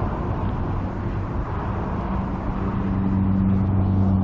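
Steady outdoor traffic rumble; about two seconds in, the low, steady hum of a nearby running engine joins it and grows slightly louder.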